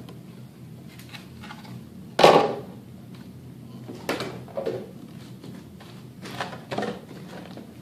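Trimmed ABS plastic stormtrooper armor shin pieces knocking against each other and the table as they are handled and set down. There is one sharp knock about two seconds in, the loudest, then several lighter knocks.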